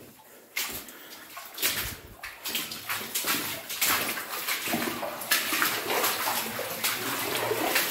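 Water sloshing and splashing in irregular bursts as someone moves through shallow water in a mine tunnel.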